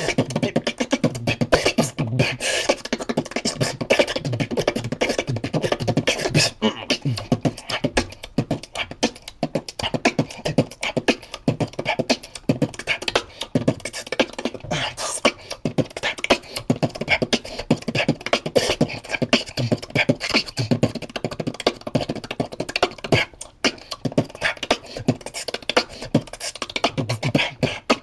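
Beatboxing: a fast, dense run of mouth-made drum sounds mixed with pitched vocal tones, going on without a break.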